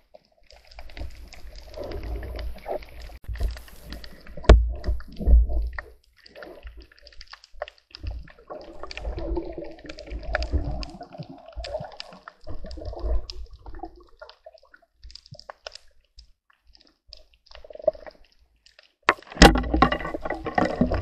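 Water sloshing and gurgling heard underwater as a diver swims, coming in irregular surges with scattered sharp clicks and knocks, and growing louder near the end.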